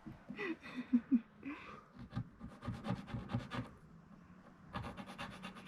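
Pencil marking out the wooden worktop, scratching in quick runs of short strokes.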